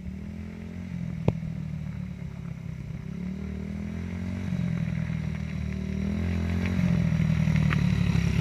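Yamaha TT-R90 dirt bike's small four-stroke single-cylinder engine running as the bike approaches, growing louder. Its pitch steps up and down with the throttle. A single sharp click comes about a second in.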